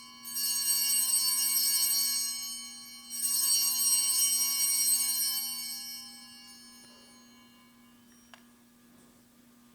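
Altar bells rung at the elevation of the host: two bright shaken peals, each about two seconds long, then the ringing dies away over the next few seconds.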